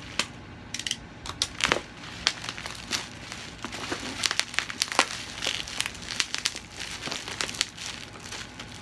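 Parcel packaging crinkling and tearing as it is opened by hand: irregular, rapid crackles and rustles.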